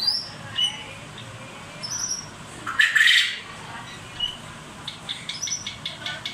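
Pet birds calling: a few short high chirps, a loud harsh squawk about three seconds in, then a quick run of short chirping notes near the end.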